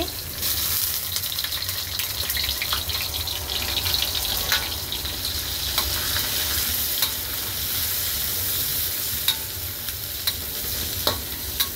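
Small salted anchovies sizzling in hot oil in a wok, with a spatula scraping and clicking against the pan as they are stirred.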